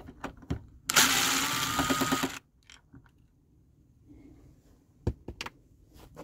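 Power drill spinning a 9/32-inch socket on an extension to back out a trim bolt, running for about a second and a half with a whine that rises slightly then holds steady. A few sharp clicks follow near the end.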